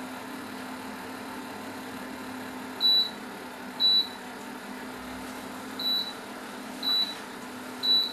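Induction heater of a home-built automated cooking machine beeping: five short high beeps about a second apart, starting about three seconds in, over a steady hum. The beeping comes from the controller switching the heater off and on to make sure it is on, because it cannot yet read the heater's status reliably.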